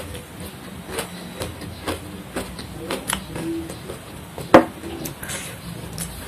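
Close-miked chewing of a lettuce-wrapped mouthful: a run of short crunches and wet mouth clicks, with one sharp, loud crunch about four and a half seconds in.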